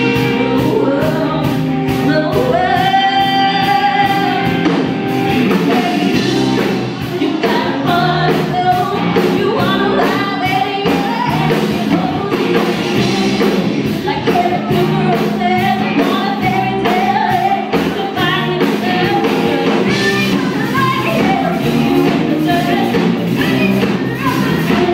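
Live band playing a rock song: a woman singing lead over electric and acoustic guitars and drums, with a steady beat.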